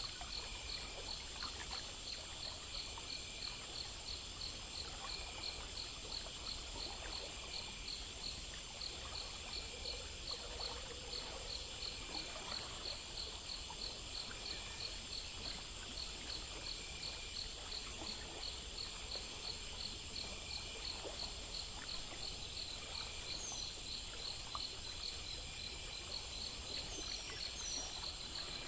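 Night insect chorus: crickets chirping in a fast, regular rhythm over a constant high-pitched insect trill, with a faint low background hiss.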